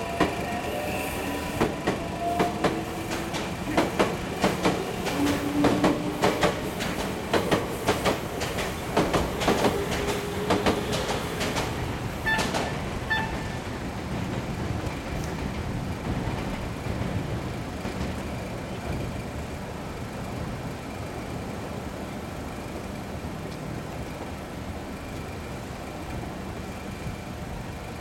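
Electric Meitetsu train passing over a level crossing, its wheels clacking over the rail joints in quick pairs with a rising electric whine. After about twelve seconds the clacks stop and a steady rumble fades away.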